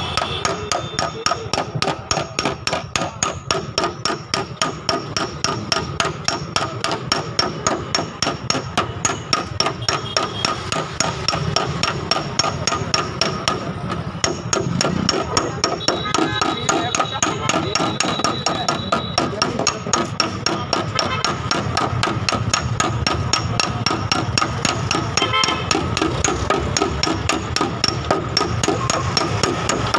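Rapid, even hammer taps on a car's sheet-metal quarter panel, about three a second, as a dent is tapped out in paintless dent repair.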